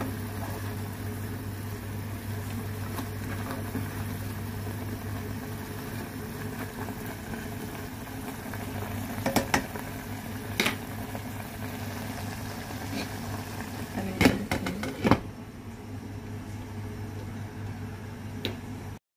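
Chicken tocino simmering and bubbling in a nonstick pan on a gas burner under a steady low hum. There are a few sharp clatters of the utensil and pan about nine and ten seconds in, then a louder cluster of knocks around fourteen seconds in as a glass lid goes on. After that the bubbling is quieter.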